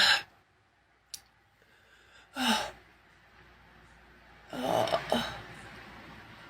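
Three sneezes set off by a nasal swab: a loud one at the start, another about two and a half seconds in, and a longer one about five seconds in.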